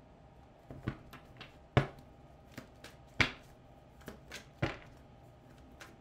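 A deck of tarot cards being shuffled and handled: about a dozen irregular sharp taps and slaps of the cards, the loudest about two and three seconds in.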